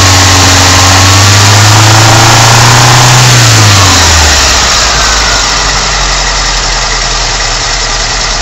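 Ford Escort Mk3 1.6 four-cylinder engine on twin Weber 40 DCNF carburettors, held at raised revs and then dropping back to idle about four seconds in. A Colortune plug in one cylinder shows a blue flame, the sign that the air-fuel mixture is now close to right.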